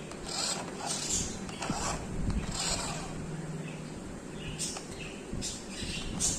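Small electric motor and gearbox of a toy remote-control car whirring in short repeated bursts as it is driven.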